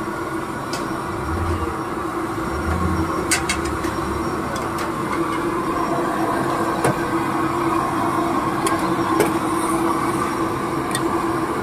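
Steady roar and hum of a gas stove burner under the tea kettles, with several sharp metallic clinks from a steel spoon and pots, and a couple of dull low thumps in the first few seconds.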